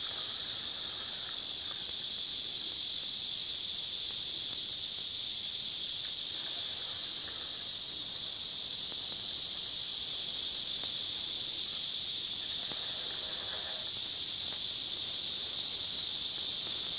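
A steady, high-pitched chorus of insects buzzing without pause.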